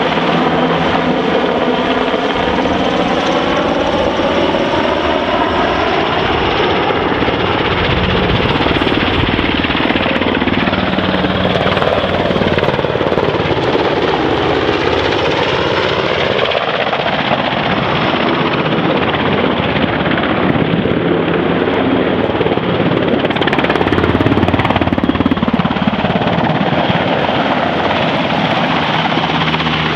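NH90 twin-turboshaft military helicopter flying a display, its rotor and turbine noise running loud and steady throughout. The pitch sweeps down and back up a couple of times as it manoeuvres and passes.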